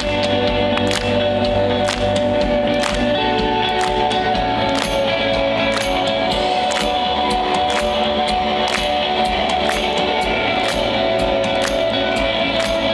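Live rock band playing with held, sustained chords over drums keeping a steady beat of about two hits a second.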